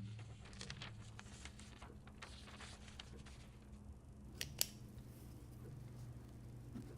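A run of faint, quick, light clicks and snips, then two sharper clicks close together about four and a half seconds in, over a steady low hum.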